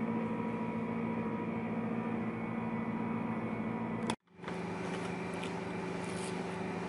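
Steady indoor machine hum with a few fixed tones in it, which cuts out for a moment about four seconds in and then resumes, with a few faint clicks near the end.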